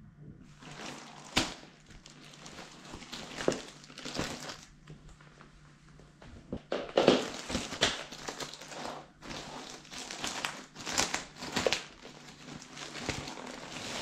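Plastic packaging crinkling and rustling in irregular bursts as hands handle a shipping bag and a clear polybag around a garment, loudest about halfway through.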